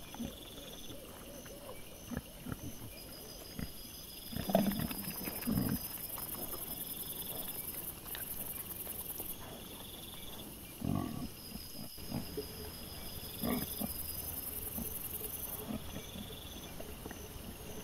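Wild boar with piglets giving a few short low grunts while they forage, over a steady high chirring of night insects.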